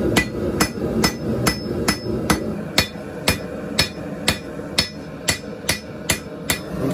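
A blacksmith's hand hammer forging a red-hot steel machete blade on an anvil: a steady run of about fifteen blows, roughly two a second, each with a short metallic ring.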